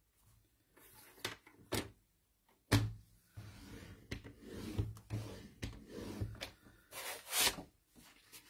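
Stampin' Up paper trimmer scoring cardstock: a few clicks as the card and blade carriage are set, then the carriage sliding down the track with a rubbing sound for about three seconds, and near the end a swish as the stiff card is lifted and bent.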